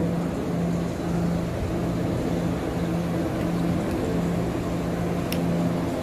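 Boat-ride ambience inside a dark show scene: a steady low rumble with a low hum that pulses on and off about every two-thirds of a second. A single sharp tick comes near the end.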